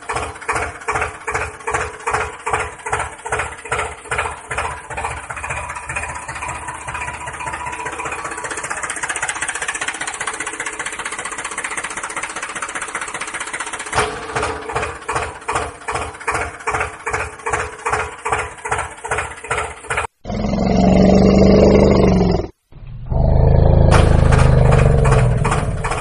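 Tractor engine sound running with a regular beat of about two to three pulses a second, blurring into a steadier run for a while. About twenty seconds in it gives way to two much louder, deeper stretches separated by a brief cutout.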